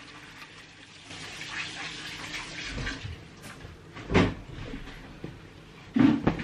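Shopping bags rustling as groceries are unpacked, with a knock about four seconds in and a louder thump near the end as things are set down.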